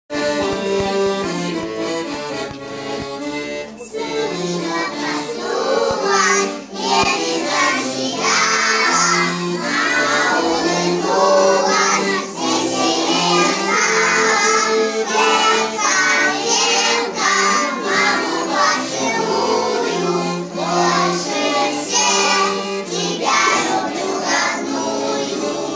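A group of young children singing a song together over an instrumental accompaniment, which plays alone for the first few seconds before the voices come in.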